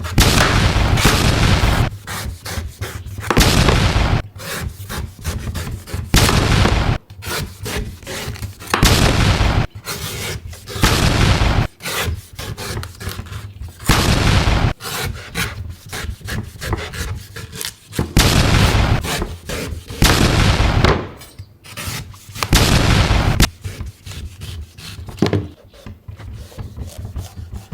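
Knife cutting a coconut: repeated loud scraping strokes, each about a second long, every two to three seconds, with sharp knocks and clicks of the blade between them.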